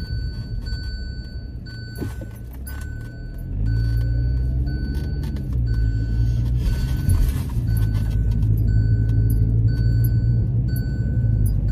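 A car's warning chime beeping steadily, about one and a half beeps a second, under loud bass-heavy music that swells about three and a half seconds in.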